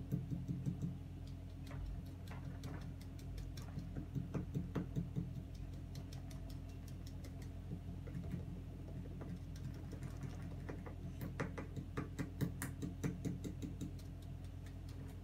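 Small irregular clicks and taps in clusters as gloved hands work baking soda into a plastic bottle's neck, heaviest about three seconds in and again near the end, over a steady low hum.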